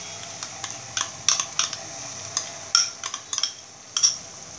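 A spoon knocking and scraping against a sauce cup and a non-stick wok, several sharp clinks scattered through the middle, over a faint steady sizzle of garlic and onion frying in olive oil.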